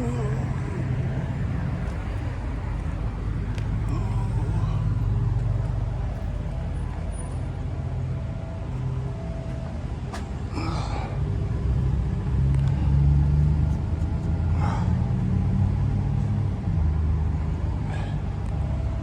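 Steady low rumble of a motor vehicle or road traffic, swelling and easing, with a few brief higher wavering chirps or squeaks about ten and fifteen seconds in.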